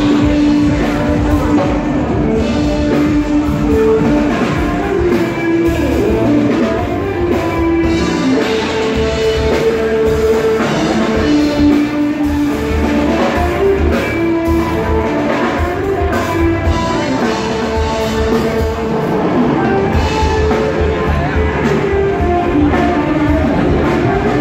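Live rock band playing loudly, with guitar and drum kit and long held melody notes over a steady beat.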